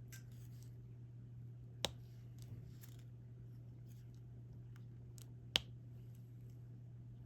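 Diamond-painting stylus placing resin drills on the canvas: a few light clicks, two of them sharper, about four seconds apart, over a low steady hum.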